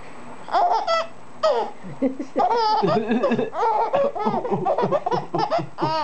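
A five-month-old baby laughing in short, repeated bursts that start about half a second in and come thick and fast from about two seconds on.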